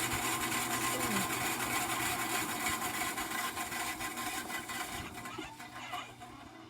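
Homemade bandsaw sawmill running steadily, then winding down over the last couple of seconds until only a low hum is left.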